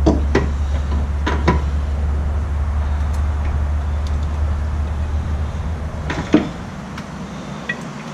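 Sharp metallic clicks and knocks of brake parts being handled as a rear brake caliper is worked back over its pads. The loudest knock comes about six seconds in. Underneath runs a steady low hum that fades away shortly after that knock.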